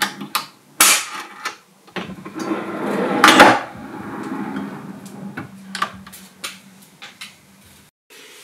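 A plywood drawer on metal drawer slides being slid open and pushed shut: the slides make a rolling, scraping noise and the wood knocks several times, loudest about three seconds in.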